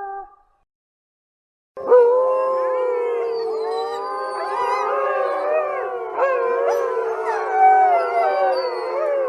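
A single howl trails off, then after a second or so of silence a pack of coyotes breaks into a chorus of many overlapping howls and wavering yips, pitches sliding up and down over one another.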